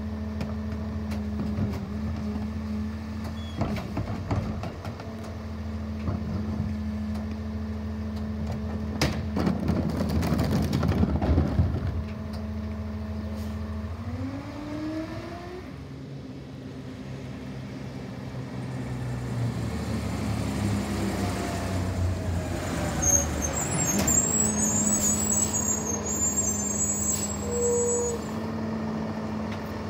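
Peterbilt garbage truck's diesel engine running steadily under its Leach rear-loader packer, with a stretch of clattering trash going into the hopper about ten seconds in. The engine then revs up in a rising pitch as the truck pulls away, followed by more engine sound and a few knocks.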